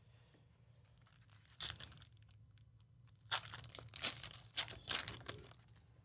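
Foil wrapper of a Panini Elite Extra Edition baseball card pack being torn open and crinkled by hand: a few sharp rips, most of them between about three and five seconds in.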